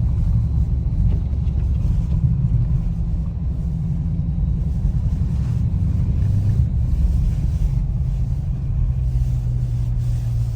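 Dodge Scat Pack's 6.4-litre HEMI V8 running at low revs with a deep, steady rumble, its pitch rising slightly near the end, while the car is stuck in snow without traction.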